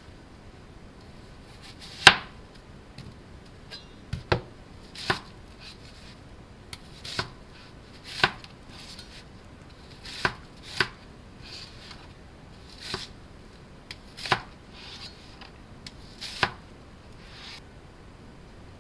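Chef's knife slicing peeled whole onions on a cutting board: about ten sharp, separate knife strikes on the board, spaced irregularly a second or two apart, the loudest about two seconds in.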